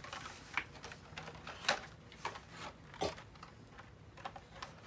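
A few scattered light clicks and taps of blister-packed Hot Wheels and Matchbox toy cars being handled and set down one after another on the track.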